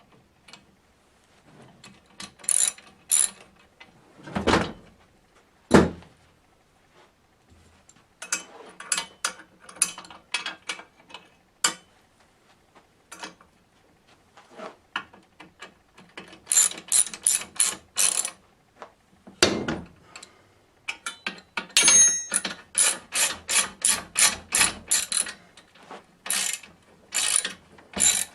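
Ratchet spanner clicking in quick runs as bolts are tightened, with a few heavier knocks from the tool and metal parts between the runs.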